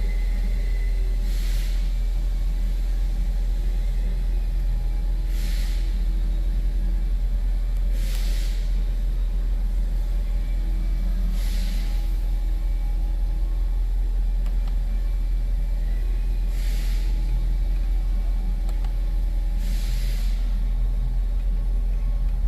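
Steady low rumble, like a vehicle running, with a soft hissing swell every three to four seconds.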